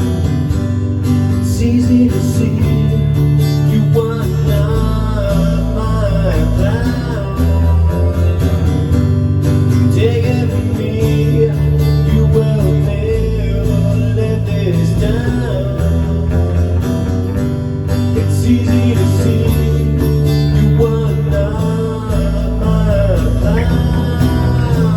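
Acoustic band playing an instrumental passage: strummed acoustic guitars and a bass line, with a lead line of bending notes over the top.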